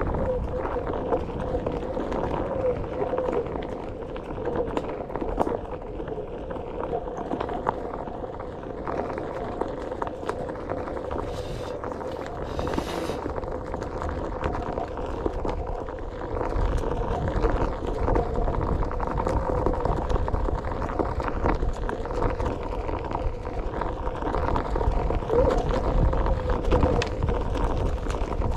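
Onewheel GT electric hub motor whining steadily, its pitch wavering a little with speed. Under it runs a low rumble of the tyre on a dirt trail and wind buffeting the microphone.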